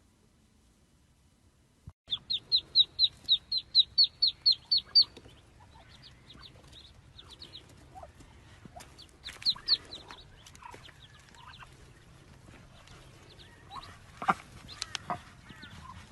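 High-pitched bird calls: about two seconds in, a fast, even run of about a dozen short chirps, about four a second, then softer scattered chirps.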